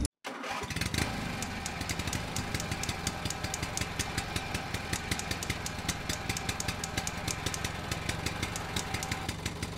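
An engine idling steadily with a rapid, even ticking clatter, starting just after a brief gap.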